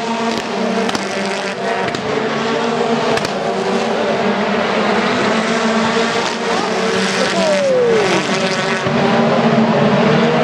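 A pack of BTCC touring cars racing past, their turbocharged 2.0-litre four-cylinder engines running together in a steady, loud mix, with a few short sharp pops. About three-quarters of the way in, one car's engine note falls clearly in pitch as it goes by.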